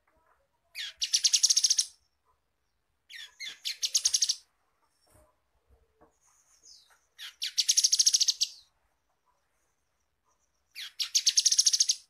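Grey-headed canary-flycatcher singing four rapid, high trills of about ten notes a second, each about a second long and begun by a short separate note, with pauses of about two seconds between them.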